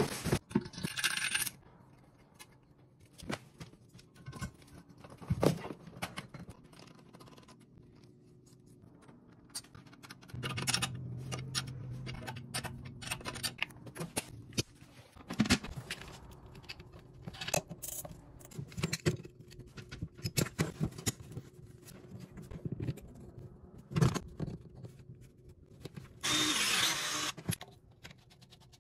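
Toilet parts and packaging being handled and fitted: a string of sharp clicks, knocks and scrapes, busier for a few seconds in the middle, with a hissing burst of a second or so near the end.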